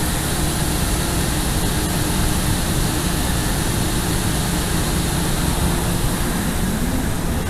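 Large diesel farm machinery running steadily: a constant engine drone with a faint, unchanging hum.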